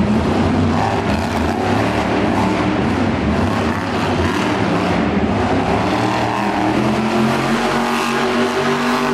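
Rat Attack monster truck's engine revving hard as the truck drives on the arena's dirt floor, settling into a steadier, even-pitched run over the last couple of seconds.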